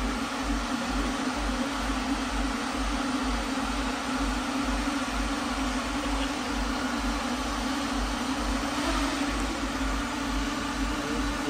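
Steady whirring hum of a swarm of light-show drones' propellers, with an uneven low rumble underneath.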